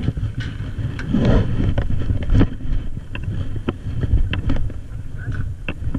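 Rumbling wind and movement noise on a head-worn camera as a paintball player moves and crouches in grass, with many scattered short sharp clicks and a brief louder burst about a second in.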